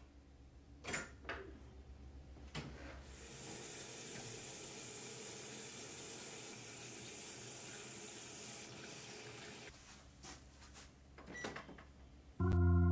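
A washbasin tap runs steadily into the sink for several seconds as hands are washed under it. It is preceded by a few sharp clicks and followed by a couple more. Keyboard music starts loudly near the end.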